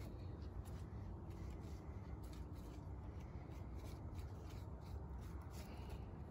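Faint rustling and light scratching from handling a pollen brush and a clear plastic container against a dragon fruit flower, over a low steady hum.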